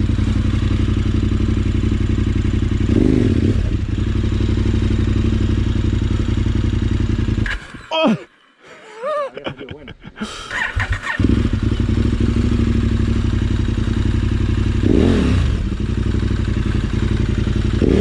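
Adventure motorcycle engine idling steadily, with a couple of brief rises in pitch. It stops about seven and a half seconds in, then starts up again about three seconds later and goes back to idling.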